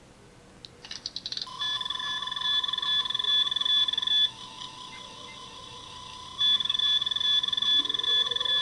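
Star Trek Mark X medical tricorder prop's sound chip: a quick run of clicks as the lid flips open, the custom opening "ratchet" sound, then the electronic scanning sound, steady beeping tones pulsing evenly. The higher tones drop out for about two seconds in the middle while a lower pulsing tone carries on, then come back.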